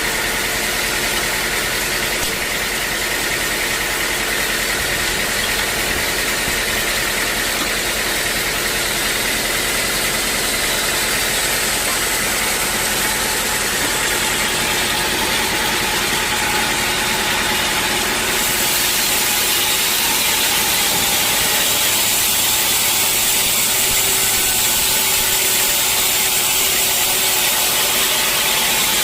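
Sawmill saw running steadily with a high hiss and whine. About two-thirds of the way through, the sound shifts and becomes brighter and a little louder.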